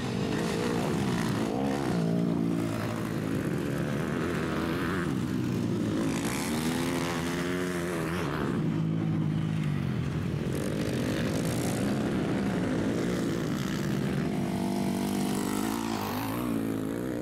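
MX2 motocross bikes racing on a dirt track, engines revving hard and backing off through jumps and gear changes, the pitch rising and falling again and again.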